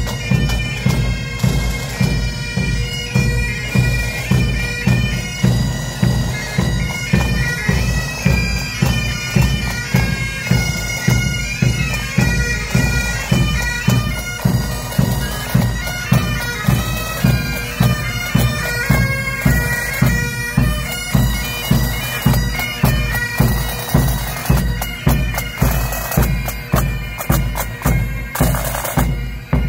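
Pipe band of Highland bagpipes and drums playing a march: steady bagpipe drones under the chanter melody, with a regular bass drum beat. The snare drums grow louder near the end as the drummers pass close.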